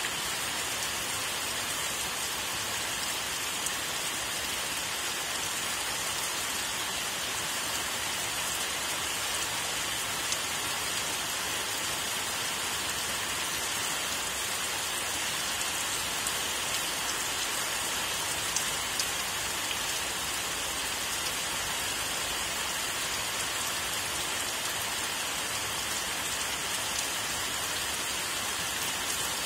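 Steady rainfall: an even, continuous hiss with a few slightly louder single drop taps.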